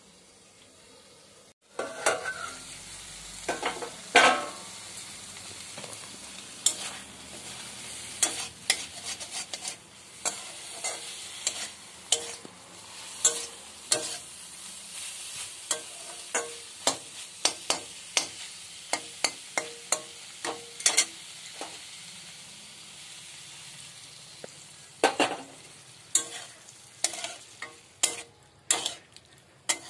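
Malabar spinach stalks frying in spice paste in a metal kadai: a steady sizzle with frequent sharp scrapes and taps of a spatula stirring against the pan. The sound starts suddenly a little under two seconds in.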